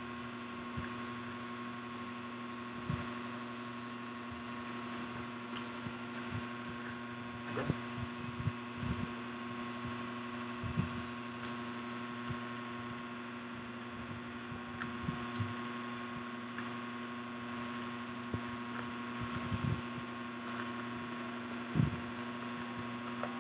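Soft, scattered chewing and mouth sounds of people eating fried street food by hand, over a steady electrical hum.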